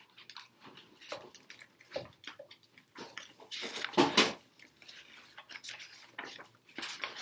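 Pages of a large picture book being turned by hand: paper rustling and flapping, loudest about four seconds in and again near the end, among scattered small clicks and taps.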